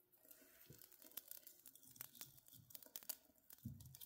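Small kindling fire crackling faintly in a wood stove's firebox, scattered irregular pops and snaps from the burning twigs. A soft low knock comes near the end as the split log is shifted by hand.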